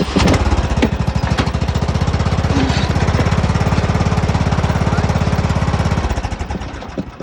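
John Deere L108 riding mower's 18.5 hp single-cylinder engine running with a rapid, even chugging beat, then shut off about six seconds in and winding down.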